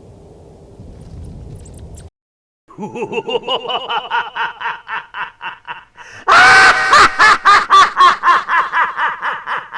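A rapid series of short, high-pitched, laugh-like calls, about five a second, after a low rumble and a brief silence; the calls grow much louder about six seconds in.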